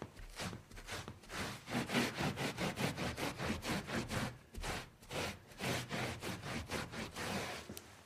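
Quick repeated scrubbing strokes of a spill being wiped up, about three to four a second, in two spells with a short pause about halfway through.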